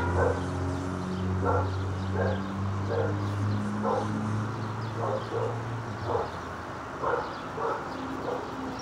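A neighbour's dog barking over and over, about one bark every half second to second, with a low steady hum underneath that stops about six seconds in.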